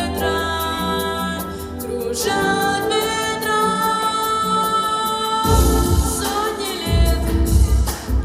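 Background music with singing: held vocal notes over instrumental backing, with a deep bass coming in about five and a half seconds in.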